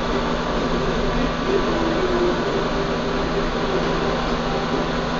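Hot-air rework station blowing a steady rush of air onto a laptop motherboard, with a low hum that shifts a little in pitch, as it heats a shorted MOSFET to desolder it.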